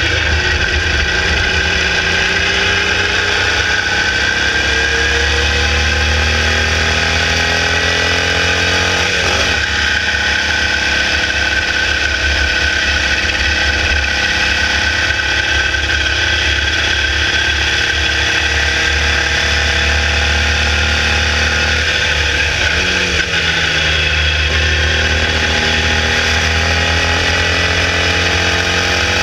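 Onboard sound of a 1200cc Formula Vee's air-cooled VW flat-four engine under full throttle, the revs climbing steadily. The pitch drops and climbs again twice, about nine seconds in and around twenty-three seconds in, as the driver changes gear.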